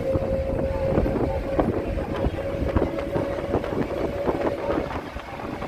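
Inside a bus moving at highway speed: low road and engine rumble with frequent short rattles, and a steady whine that fades out near the end.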